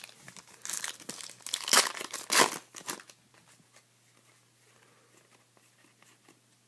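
Plastic trading-card pack wrapper being torn open and crinkled, a crackly burst of about two seconds, loudest twice in the middle, then only faint rustling of cards being handled.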